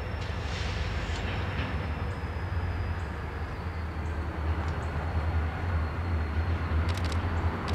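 Distant diesel locomotives idling and moving slowly, a steady low engine rumble with a faint thin high whine over it. A few short clicks come near the end.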